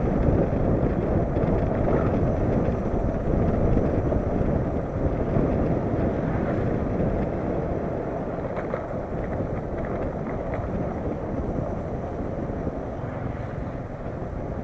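Honda CB500X parallel-twin motorcycle on the move, its running noise mixed with wind buffeting the action camera's microphone as a steady low rumble. The level eases off gradually over the last several seconds.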